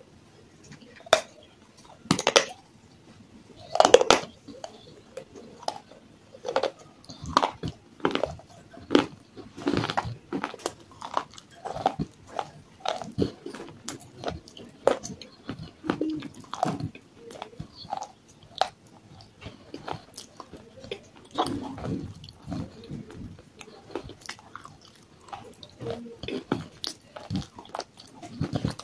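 Pieces of baked-clay cup coated in a white paste being bitten and chewed close to the microphone, with irregular sharp crunches throughout. The loudest crunches come about two and four seconds in.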